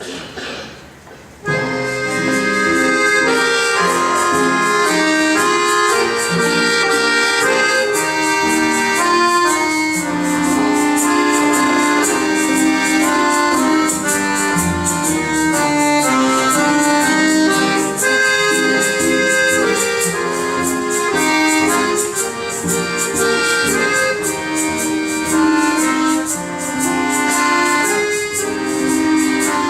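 Music from a folk ensemble with a prominent accordion, starting about a second and a half in and carrying a slow Russian folk melody with held notes.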